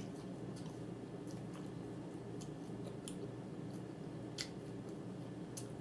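A person chewing food with the mouth, giving soft, wet smacking clicks at irregular intervals. The clearest click comes about four and a half seconds in.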